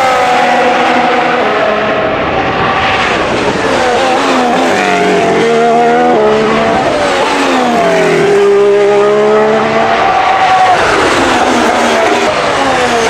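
Ferrari SF16-H Formula 1 car's 1.6-litre turbocharged V6 running hard on track. The engine note falls as it drops gears, climbs again under acceleration with quick gear changes around the middle, and falls once more near the end.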